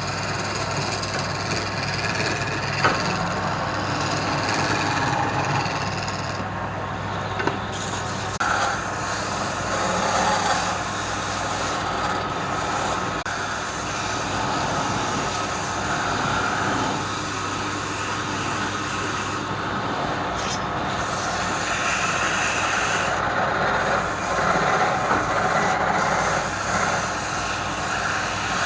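Wood lathe running with a steady motor hum while a turning tool rasps against the spinning wood, the scraping rising and falling as the cut changes, with a couple of sharp clicks early on.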